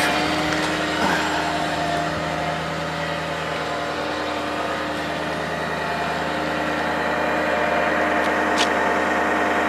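Ford F550 bucket truck's 6.0-litre diesel engine idling steadily, with a steady hum of several held tones. A light click comes near the end.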